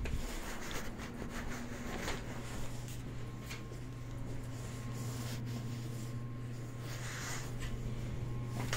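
A steady low hum from a machine, which settles in about two seconds in and keeps going, under rubbing and rustling from the phone being handled while walking.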